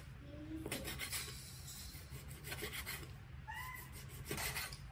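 A cleaver slicing through raw beef on a wooden cutting board, the blade rasping and scraping against the board in irregular strokes.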